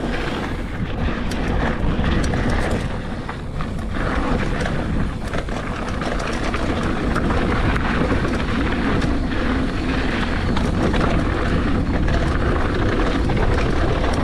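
Mountain bike (Polygon Siskiu T8) riding over a dirt trail: wind rumble on the microphone mixed with tyre noise, with scattered clicks and knocks from the bike rattling over bumps.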